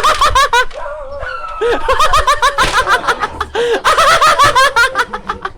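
Several people laughing, with quick, repeated high-pitched bursts of laughter. The laughter thins briefly about a second in and drops away just before the end.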